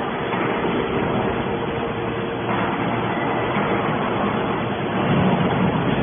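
Hydraulic scrap metal baler running: a steady mechanical hum with a faint held tone in it, growing a little louder about two and a half seconds in.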